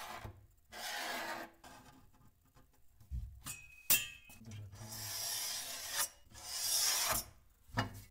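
Scratchy rubbing strokes of a marker drawn along a steel ruler on a wooden cabinet panel. About four seconds in comes a sharp metallic click with a short ring, then more long rasping rubs and a thump near the end as a steel drawer slide is handled against the wood.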